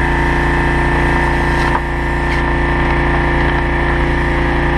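Gas engine of a high-pressure sewer jetter running steadily, driving the pump that pushes water through the hose to the self-propelling nozzle in the RV drain pipe. A small click about two seconds in.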